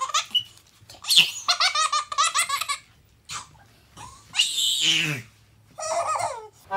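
A baby laughing hard in several bursts of quick, repeated giggles, with one longer squeal near the middle that falls steeply in pitch.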